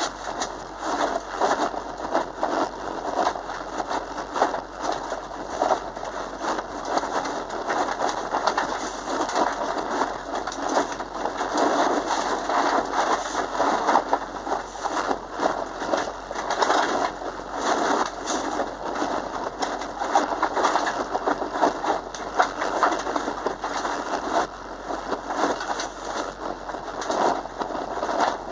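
Inside a Subaru Impreza driven hard on a muddy autocross course: a dense, crackling din of mud and stones spraying against the bodywork, with tyre and engine noise buried under it, the loudness constantly rising and falling.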